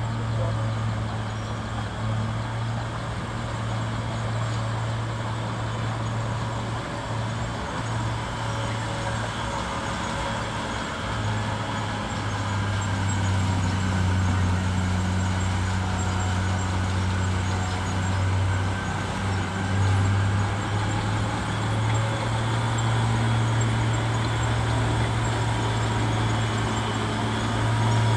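Bulldozer's diesel engine running steadily, its low hum dipping slightly in pitch partway through and rising again.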